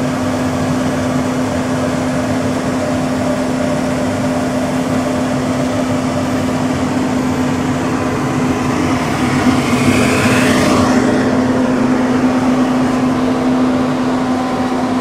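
Steady hum of a powered-up CNC milling machine's electrics, with its Indramat AC spindle drive switched on: one steady low tone under an even fan-like noise. A hiss swells briefly about ten seconds in.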